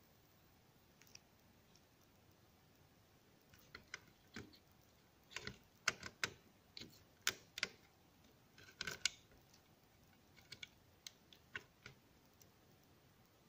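Irregular light clicks and taps of fingers handling the plastic case and circuit board of an opened Asus Eee PC 1225C netbook. They are sparse at first and come in clusters through the middle.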